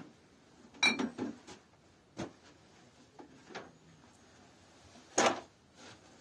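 A few scattered knocks and clatters of objects being handled: a quick cluster about a second in, single knocks around two and three and a half seconds, and the loudest near the end.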